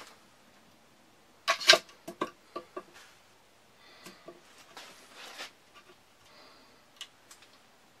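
Wooden sticks of a homemade bird pole trap being handled and set on a fence post: a quick run of sharp wooden clicks and knocks about one and a half seconds in, then softer scuffing and a single click near the end.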